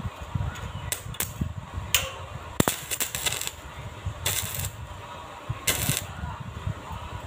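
Electric arc welder crackling in several short bursts, each a second or less, as tack welds are laid on a steel tube frame.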